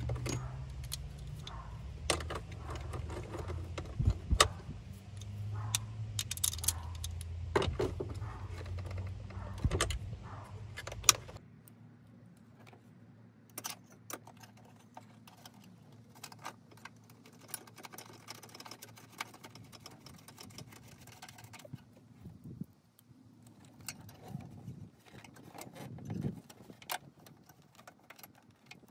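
Hands handling and fitting the plastic fuse box and nearby engine-bay parts: a string of clicks, knocks and light rattles, the sharpest knocks around four and eleven seconds in. A low steady rumble underneath stops abruptly about eleven seconds in, and the clicks that follow are fainter.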